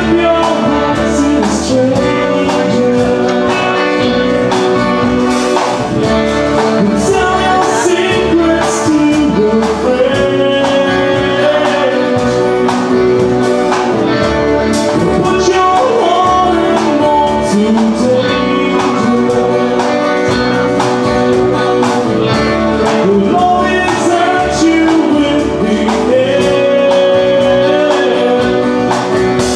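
Live band playing a rock song: a man singing lead over acoustic and electric guitars and a drum kit.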